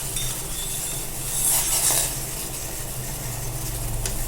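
A pot of herbal decoction (kashayam) boiling on the stove: a steady bubbling hiss, with a low steady hum underneath.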